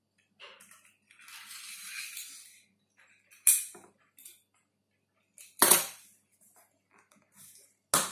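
Press-stud buttons on a leather axe sheath being unsnapped: a short rustle of leather, then three sharp clicks about two seconds apart.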